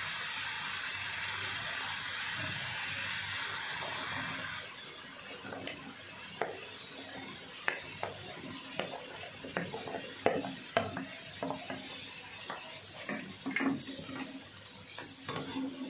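Sugar syrup boiling hard in a non-stick frying pan, a steady bubbling hiss that drops away about four and a half seconds in as the boiled papaya cubes go in. After that come scattered knocks and scrapes of a wooden spatula against the pan as the pieces are stirred through the syrup.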